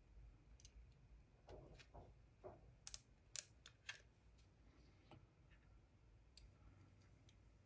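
Faint scattered plastic clicks and taps as the cassette walkman's chassis is handled and fitted into its plastic case, with a cluster of sharper clicks around the middle.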